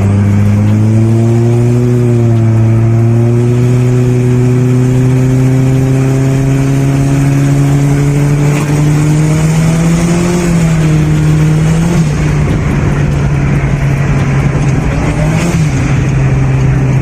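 Car engine running steadily, its pitch rising slowly and then dipping slightly near the middle, as the revs change.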